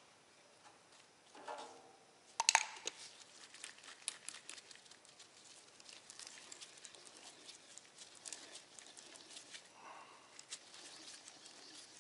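Can-opener-style oil filter cutter clamped onto a used Mighty T4477 spin-on oil filter and cranked around it, its cutting wheel scoring the steel can with a run of small, rapid, irregular clicks and crunches. A single sharp metallic clack comes about two and a half seconds in, the loudest sound.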